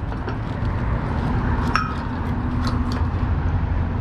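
A few light metallic clinks, one ringing briefly just under two seconds in, as a magnet-fishing magnet and the scrap stuck to it knock against the metal bridge railing, over a steady rumble of road traffic.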